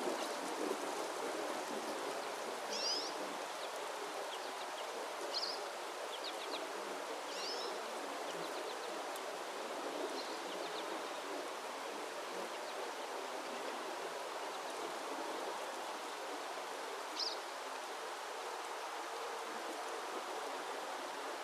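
Forest nature ambience: a steady rushing wash of water with a few short, high bird chirps scattered through the first half and one more near the end.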